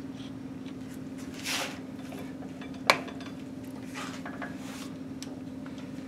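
Small metal clicks and scrapes as a dial indicator stand's clamp and rods are handled, setting the indicator up to check crankshaft runout. There is a short scrape about one and a half seconds in, a single sharp click near the middle, then a few faint clicks, all over a steady low hum.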